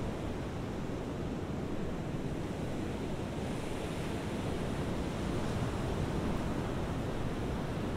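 Ocean surf: a steady wash of breaking waves, swelling a little about halfway through.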